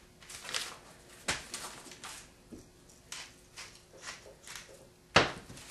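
Paper notes being crumpled and torn: a series of short, scratchy crinkles about every half second, with a louder crackle about five seconds in.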